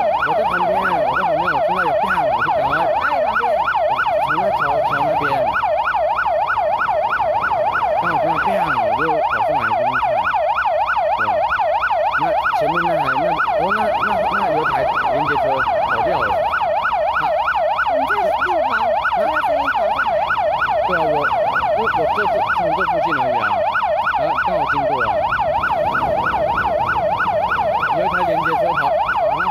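Emergency-vehicle siren sounding continuously in a fast yelp, its pitch sweeping up and down several times a second.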